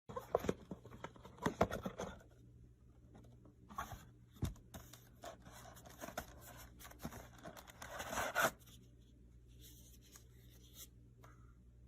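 Scraping and rustling handling noise with sharp clicks, in three bursts: near the start, about four seconds in, and about eight seconds in.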